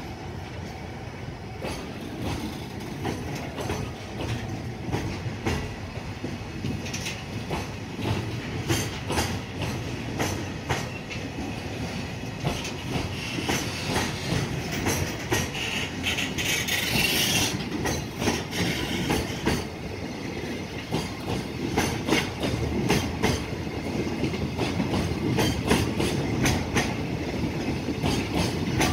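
Container flatcars of a fast freight train rolling past close by, the wheels clattering over the rail joints in a rapid clickety-clack over a low rumble. A brief high-pitched squeal comes about halfway through, and the rumble grows a little louder toward the end.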